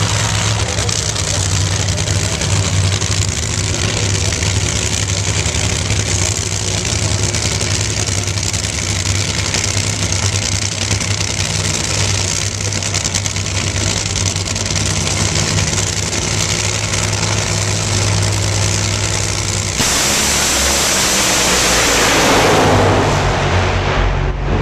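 Two nitro Funny Cars with supercharged Hemi V8 engines run at the starting line with a steady, heavy low idle. About twenty seconds in they launch: the engines suddenly go to full throttle, much louder and harsher, then fade as the cars race away down the track.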